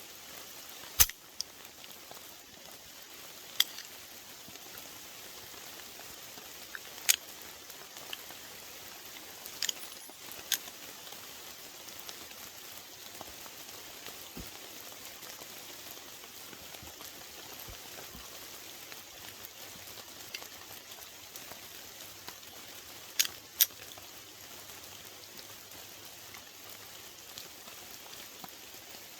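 Steady rain patter, with a few sharp clicks scattered through it, two of them close together near the end.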